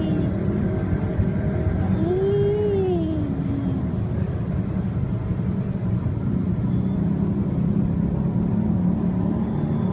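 A domestic cat meows once about two seconds in, a short call that rises and then falls in pitch, over a steady low rumble.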